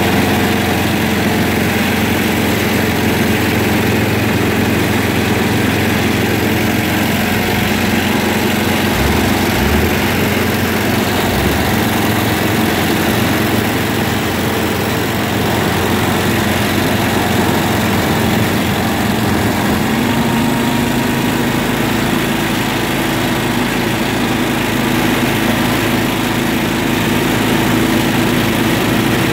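John Deere lawn tractor's engine running steadily under the rider, its note rising slightly about two-thirds of the way through.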